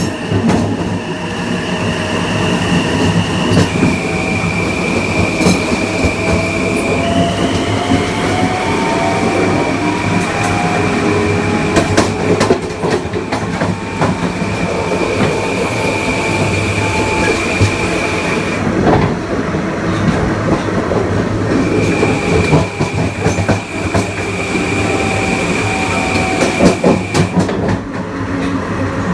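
Long Island Rail Road Kawasaki M9 EMU's Mitsubishi (MELCO) IGBT-VVVF inverter and AC traction motors under power: a steady high inverter whine that steps in pitch a few times, with lower motor tones slowly rising. Wheels clack over rail joints underneath, and the inverter whine cuts out briefly about two-thirds of the way through and again near the end.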